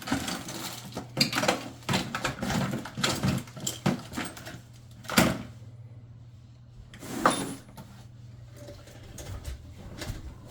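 Rummaging for a small nut: a run of clicks, rustles and light clatter of handled parts, with two sharper knocks about five and seven seconds in, over a steady low hum.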